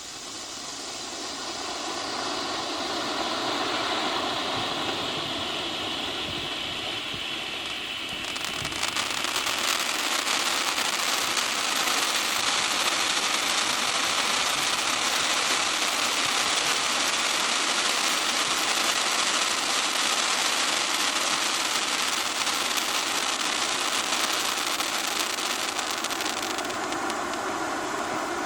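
Legend Fireworks "Baseball Bat" firework fountain burning with a steady, rushing hiss of spraying sparks. It builds over the first few seconds, grows louder and brighter about a third of the way through, and its highest part thins out near the end.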